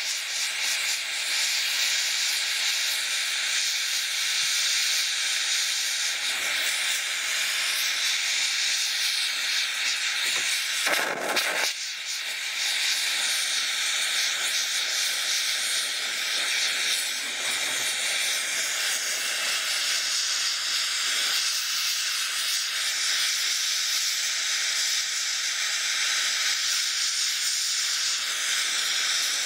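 MAP gas and oxygen torch flame hissing steadily as it heats a crucible of sterling silver scrap that is just turning molten. One brief louder burst comes about eleven seconds in.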